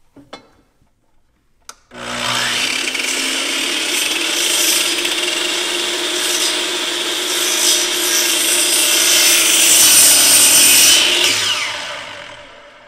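Electric compound miter saw switched on about two seconds in, its motor spinning up and the blade cutting through a 2x6 wooden board. Near the end the trigger is released and the blade winds down with a falling whine.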